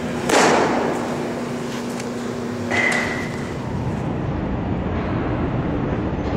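A pitched baseball smacks into the catcher's mitt with a loud pop that echoes in a large indoor hall. A lighter knock with a brief ring follows near three seconds in, over a steady hum.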